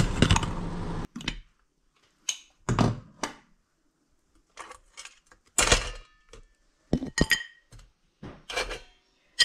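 Glass lid lifted off a stainless steel steamer pot, then steamed rock crabs handled on the perforated steamer tray and a plate: a string of separate short clacks and scrapes of hard shell against metal and china. A steady hiss cuts off about a second in.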